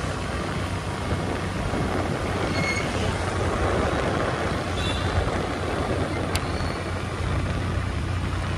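Riding on a motor scooter: the small engine's steady hum under the rush of wind and road noise from the moving scooter.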